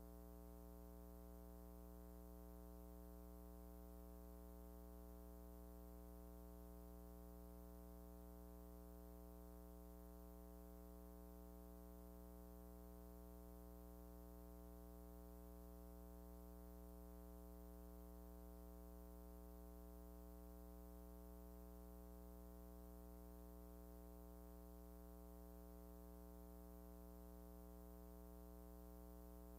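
Near silence with a faint, steady electrical hum made of many even overtones, unchanging throughout.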